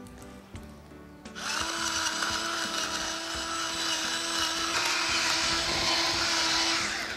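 Electric salt and pepper grinders running together to season the salad: a steady motor whine with a gritty grinding hiss, starting a little over a second in and stopping near the end.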